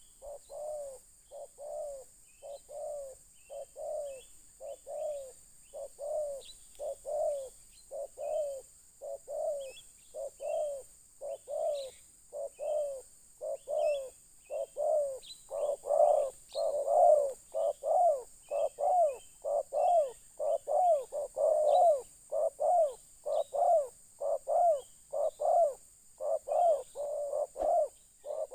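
Spotted dove (terkukur) cooing in a long, fast run of short, repeated coos, louder from about halfway. Faint high chirps of small birds sound in between.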